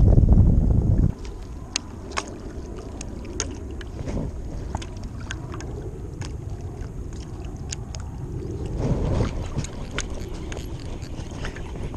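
Water lapping against a paddleboard, with scattered small sharp clicks and ticks throughout. Wind rumbles on the microphone for about the first second and cuts off abruptly, and the noise swells briefly about nine seconds in.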